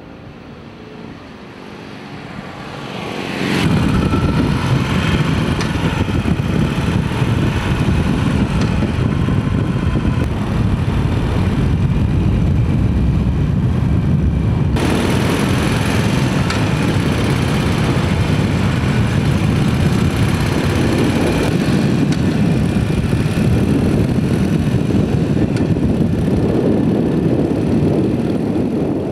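Motorcycle engine running under way, swelling up loud about three seconds in as it approaches and then carrying on steadily, with an abrupt change in its sound about halfway through.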